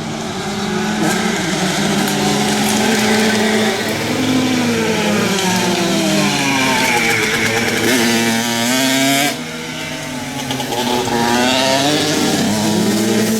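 Several flat track racing engines revving up and down together as the field laps the dirt oval, their pitch rising on the straights and falling off into the turns. The sound drops briefly about nine seconds in, then picks back up.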